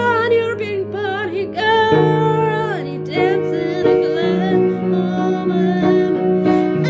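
Music: a woman's voice singing wordless held notes with a wide vibrato over sustained piano chords.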